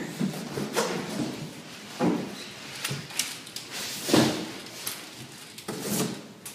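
Large cardboard shipping box being handled as its outer sleeve is pulled up off the pallet: a series of irregular cardboard scrapes and rustles with light knocks, the loudest about four seconds in.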